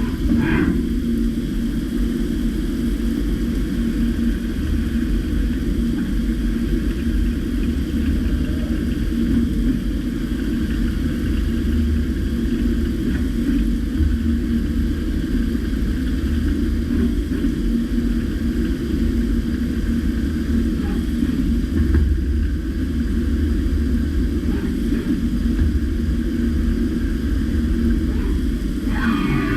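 DMG MORI M1 CNC vertical milling machine running while machining a steel part: a steady low rumble with a constant hum, and a brief higher glide about half a second in and again near the end.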